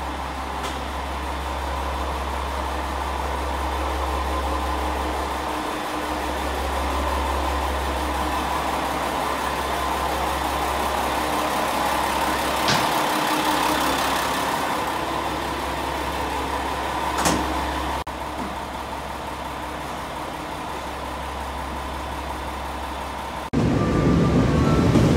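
Diesel railcar of the Hanayome Noren train idling at the platform: a steady engine hum with a deep drone beneath, broken by two brief clicks. Near the end a second train suddenly comes in much louder, running past on the next track.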